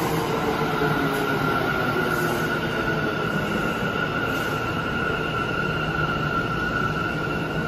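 Bombardier R179 subway train slowing on the far track, its traction motors giving a steady high whine over the rumble of wheels on rail. It is the screeching, scraping traction-motor sound the R179 shares with Kawasaki-built cars.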